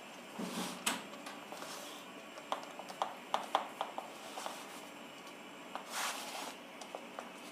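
Hands pressing and smoothing raw pizza dough out to the edges of a metal pizza pan: faint soft swishes of palms rubbing over the dough, with a run of small light clicks in the middle.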